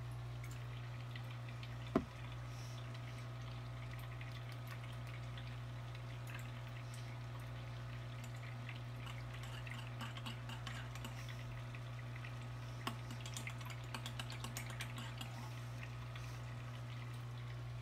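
Plastic micro scoop stirring powder food into water inside a plastic feeder cup at an aquarium's surface: light water sounds and a patter of small clicks, with one sharp click about two seconds in. A steady low hum runs underneath.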